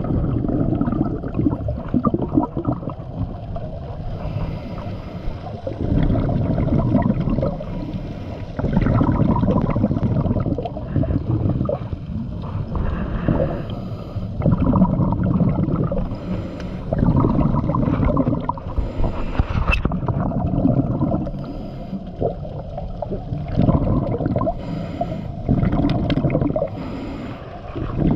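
Scuba diver breathing underwater through a regulator: drawn breaths and the burble of exhaled bubbles, in a slow, even rhythm of about one breath every four seconds.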